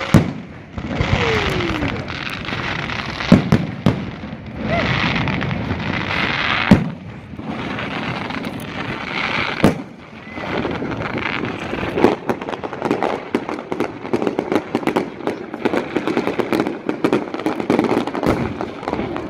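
Aerial fireworks display: shells bursting with loud bangs every few seconds, then a rapid run of crackling reports over the last several seconds.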